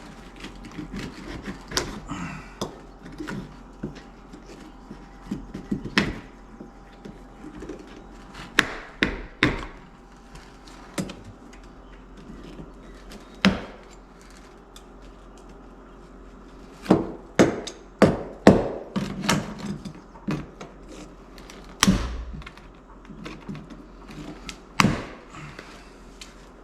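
Hand tools knocking and prying at rotted wood flooring under a door opening: irregular sharp wooden knocks, several in quick runs about a third and two thirds of the way through.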